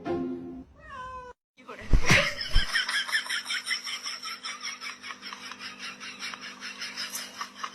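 A cat vocalizing: a short call gliding up and down in pitch near the start, then, after a thump about two seconds in, a fast, regular run of short sounds, several a second.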